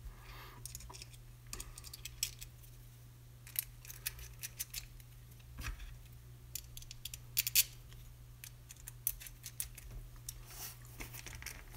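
Small screws being fitted and turned into a metal cooling block with a hand screwdriver: scattered light clicks, ticks and scrapes of metal on metal.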